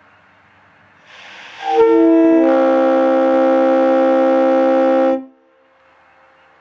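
Leslie RS-3L three-chime air horn sounding one blast of about three and a half seconds. A rush of air comes first, then the chord builds as the bells come in, holds steady, and cuts off sharply.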